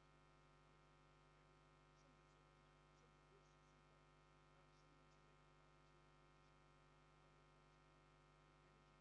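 Near silence on a broadcast feed that has lost its sound: only a faint steady electrical hum.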